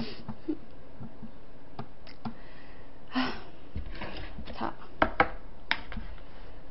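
A few light clicks and taps as chopsticks are picked up off a table and poked into a plastic takeout container of braised chicken, with a low room background between them.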